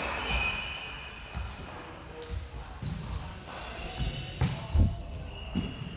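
Volleyball play in a gym: a string of irregular thumps of the ball being hit and bouncing on the hard floor, the loudest about five seconds in.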